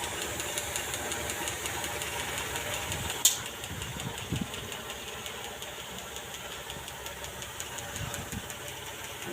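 Animal fogger system's pump running steadily with a rapid, even pulse. There is a single sharp click about three seconds in.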